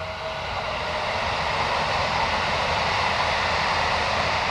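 A 711-series electric multiple unit passing close by: the rush of its wheels on the rails builds over the first second or so, then holds steady and loud as the cars go by.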